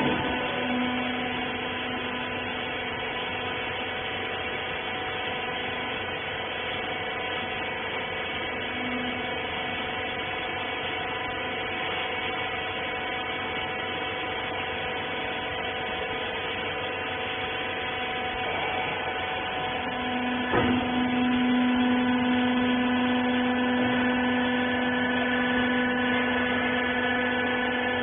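Cloth baler machine's motor running with a steady electric hum of several constant pitches. There is a click at the start and another about two-thirds of the way in, after which a lower hum grows louder.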